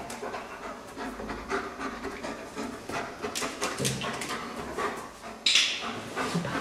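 Explosives detection dog panting and sniffing in quick short strokes as it searches. A brief, louder scuffing noise comes about five and a half seconds in.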